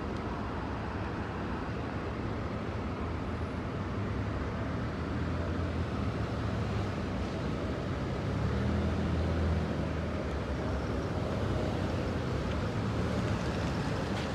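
2009 NABI 40-LFW hybrid-electric transit bus idling with a steady low engine hum.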